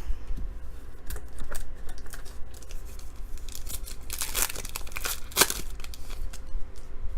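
A foil trading-card pack being torn open and crinkled: a series of short rips, loudest about four seconds in and again about five and a half seconds in.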